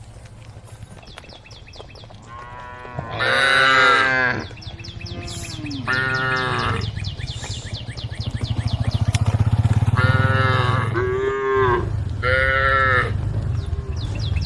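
Several cows mooing in turn as they call to the herd, in long calls that rise and fall in pitch, the loudest about three seconds in. A steady low hum runs underneath.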